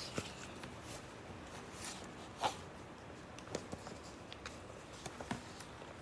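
Faint handling noise of a sheet of paper being held and moved: a few soft rustles and clicks, the loudest about two and a half seconds in.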